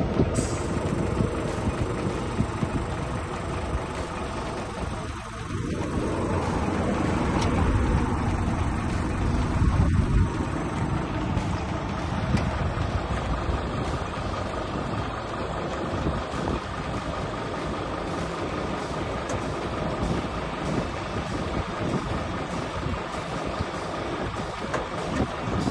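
Coach wheelchair lift in operation: its drive runs steadily as the platform lowers to the ground and then folds back up under the entrance step, over a continuous low vehicle hum.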